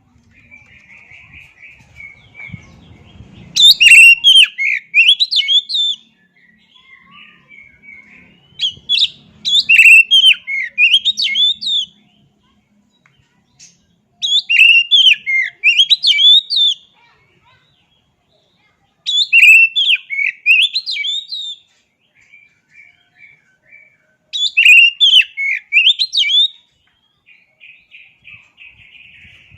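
Oriental magpie-robin (kacer) singing: five loud phrases of rapid, varied whistled notes, each about two to three seconds long and coming roughly every five seconds, with softer buzzy chatter between them.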